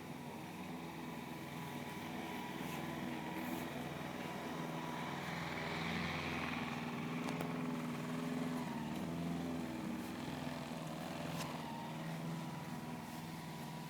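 Bees buzzing in flight, a low hum that wavers up and down in pitch and swells in the middle.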